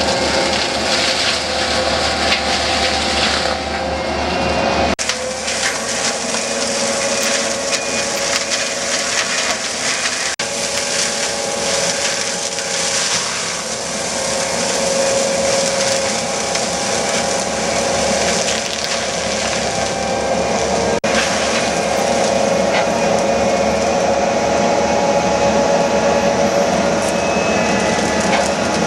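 Skid-steer forestry mulcher with a fixed-tooth rotor running and grinding brush and trees: a steady whine over the crunching and splintering of wood. The sound jumps abruptly about 5, 10 and 21 seconds in.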